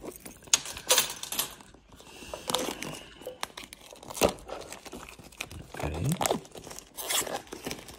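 Clear plastic film wrap being torn and peeled off a cardboard box, with irregular crinkling and crackling.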